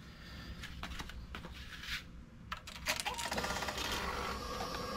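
Scattered clicks and handling knocks, then from about three seconds in a steady electric whir with a fast rattle at its start: the 2006 Suzuki GSX-R750's fuel pump priming after the ignition is switched on, just before the engine is started.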